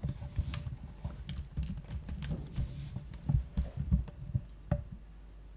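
Irregular soft knocks and thumps of a handheld camera being moved about and set down by the table, a few sharper clicks among them; they die down near the end.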